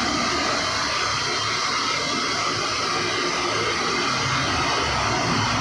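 Steady sizzling hiss of a big batch of shakarpare dough pieces deep-frying in hot ghee in a wide iron karahi.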